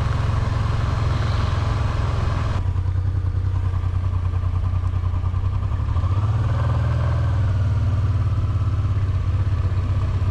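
Honda Transalp 700's V-twin engine running at low revs while the bike rolls slowly, with a slight rise in revs about six seconds in. A hiss behind the engine stops abruptly about two and a half seconds in.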